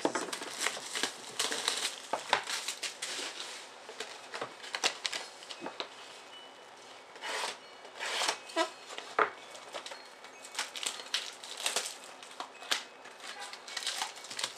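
Plastic shrink wrap being torn and crinkled off a trading card box, then the cardboard box being opened and handled, with many quick crackles and sharp clicks.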